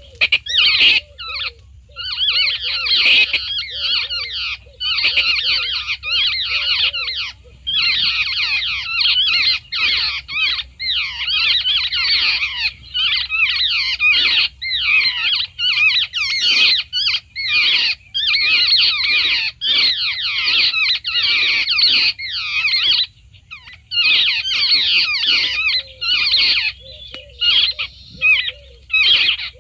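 Recorded flock calls of charkhi birds (babblers) played loud through a small portable speaker: dense bouts of harsh, fast chattering, each a second or two long with short breaks, over a repeated lower squeaky note. It is a lure call meant to draw the flock in.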